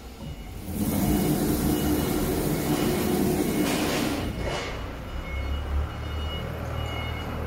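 Unitec UT1326 ATC CNC router running: a loud hissing whir with a hum underneath for about three seconds, then it drops to a quieter steady low hum about four seconds in.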